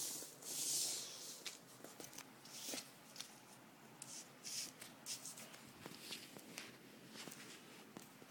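A folded printed toy-airport play mat and its clear plastic sheet rustling and crinkling as they are handled and unfolded. The rustle is loudest in the first second, then comes in short bursts with a few small clicks and taps.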